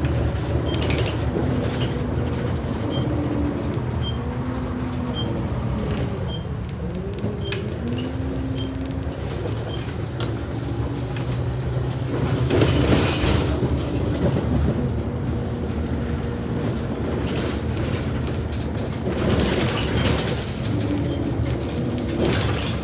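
Single-deck/double-deck service bus heard from on board, engine running with a gearbox whine that glides up and down in pitch as the bus pulls away and changes speed. A faint regular tick about once every 0.8 s stops about ten seconds in. Two bursts of hiss come later, about 13 and 20 seconds in.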